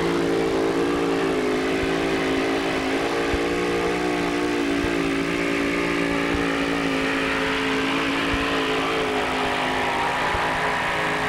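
Engine of a two-wheel-drive super modified Dodge pulling truck running flat out under load as it pulls the sled down the track, holding steady revs.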